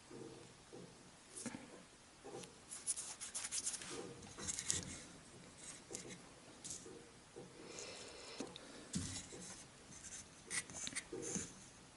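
A small wooden part being handled and pressed against a model ship's wooden hull by hand: irregular light scratching, rubbing and small clicks.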